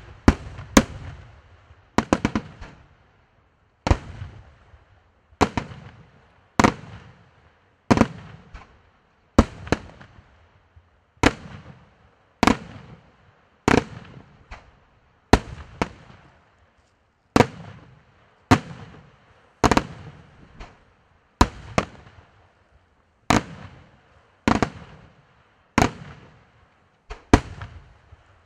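Aerial firework shells bursting in a steady sequence: a sharp bang roughly every second and a half, each trailing off in a rolling echo, with fainter pops and crackles in between.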